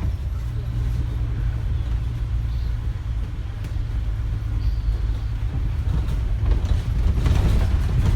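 Steady low engine and road rumble inside a moving bus, growing a little louder near the end.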